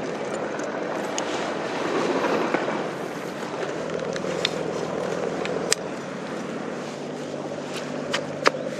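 Handling noise and wind on the microphone with scattered clicks, then near the end sharp clicking and scraping as a bait scoop stirs groundbait and krill in a bait bucket.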